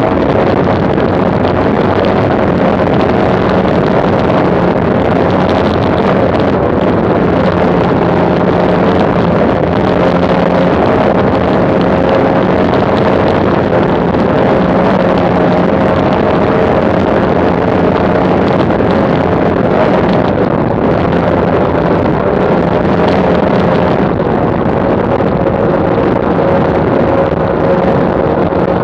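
Twin Mercury OptiMax 300XS two-stroke V6 outboards running hard on a high-speed powerboat run at about 120 km/h, a steady engine drone mixed with the rush of wind and spray. The drone eases slightly about three-quarters of the way through as the boat slows a little.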